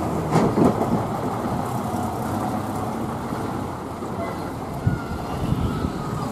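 Engine of a heritage rear-platform double-decker bus pulling away and driving off, running steadily, with a faint whine in the second half.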